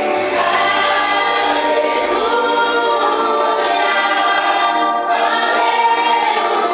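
A group of voices singing a worship song together, with a brief break between phrases about five seconds in.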